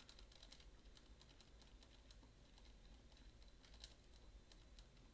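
Faint, rapid, irregular clicking from a MIWA magnetic camlock being picked under tension, its internal parts clicking as the pick tool works them, with one louder click about four seconds in.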